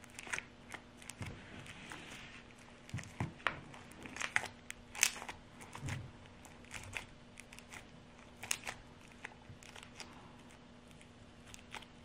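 Sticky slime being squeezed, pulled and pushed into a rubber balloon by hand: irregular small clicks, crackles and squelches, busiest in the middle and thinning out near the end.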